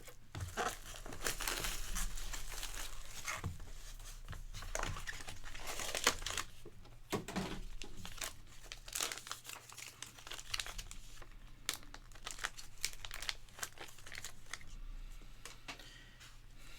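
Packaging being crinkled and torn open by hand in irregular crackling bursts, as a box or pack is unwrapped to get at the cards.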